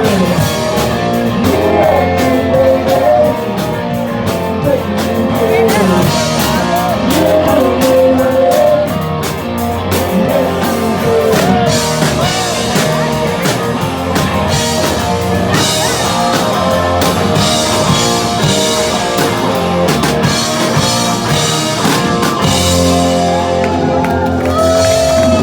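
A live rock band playing a song: a singing voice over guitar, bass and a drum kit.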